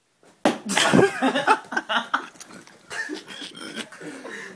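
A sudden loud hit about half a second in, followed by a man's yelps and pained groaning, likely from a ball thrown into the groin.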